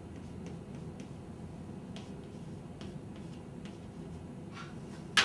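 Chalk on a blackboard: light ticks and taps as lines are drawn, a short scrape, then one loud sharp tap of the chalk near the end.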